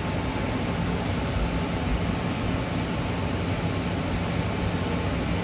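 Steady even hiss with a low hum underneath, from a Hydromax torch soldering machine running while its fine pencil-torch flame solders a gold chain.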